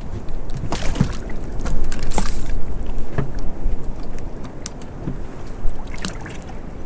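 Water slapping against the hull of a small open boat, with a low rumble of wind and a few scattered light knocks and clicks.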